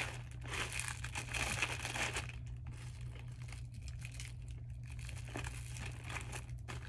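Packaging crinkling and rustling as items are handled and unpacked, busiest in the first two seconds and then quieter with a few sharp rustles, over a steady low hum.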